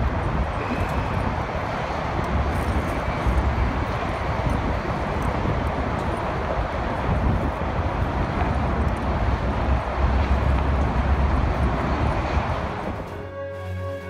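Wind buffeting the microphone over a steady roar of traffic on the George Washington Bridge below. About a second before the end the roar drops away and music comes in.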